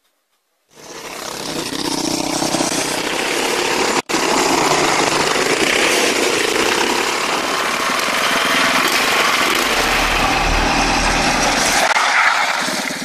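Small petrol engines of an off-road buggy and a go-kart running loudly under way, starting abruptly and broken by a hard edit cut about four seconds in.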